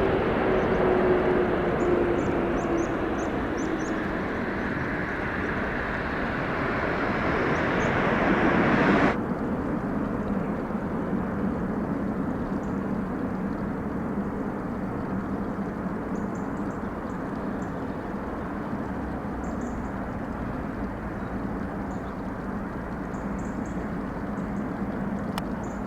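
Boeing 777-300ER's GE90 turbofan engines passing close on landing approach, loud, with an engine tone falling in pitch. About nine seconds in the sound cuts abruptly to a quieter, steady distant jet rumble with a low hum.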